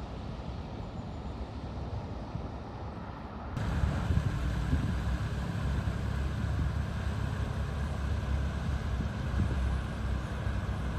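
A vehicle driving through floodwater: steady engine rumble and water wash, with wind noise on the microphone. About three and a half seconds in the sound switches suddenly to a louder, deeper rumble.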